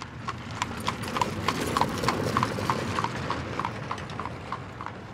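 Clip-clop of hooves at a walk, about three hoofbeats a second over a low rumble, like a donkey cart on a road, getting fainter toward the end. It is a hoofbeat sound effect laid over the toy donkey cart.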